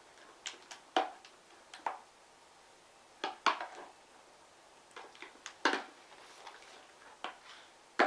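A utensil knocking and clicking against a bowl at irregular intervals while stirring slime that may have been over-activated.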